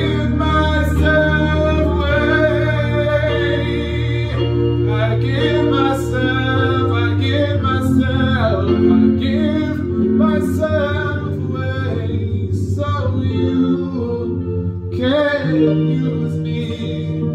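A man singing a gospel worship song while accompanying himself on an electronic keyboard, the voice gliding over long held chords.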